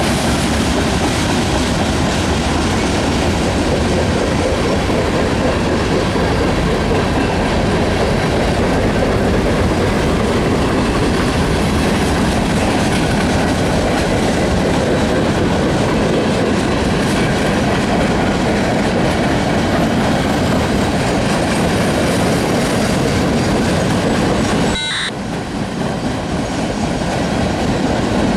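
A long freight train's cars rolling past, steel wheels running over the rails in a loud, steady rush, with a brief dip in level about 25 seconds in.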